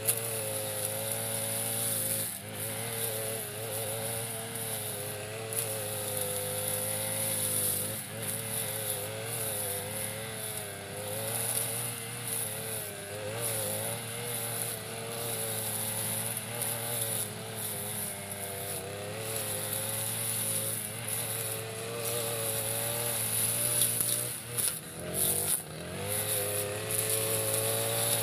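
Backpack brush cutter's small petrol engine running at high speed while its sharp metal blade cuts tough grass. The engine note wavers up and down as the blade bites, with a few brief dips in loudness near the end.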